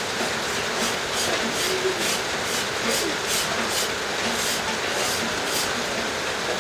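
A blade scraping and shaving a wooden bow stave in quick repeated strokes, about two to three a second, over a steady background hiss.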